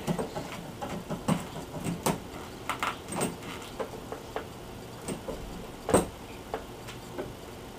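Screwdriver tightening a brass terminal screw on a plastic stack switch held in the hand: irregular small clicks, taps and short scrapes of metal on the screw and of the device being handled. The sharpest click comes about six seconds in.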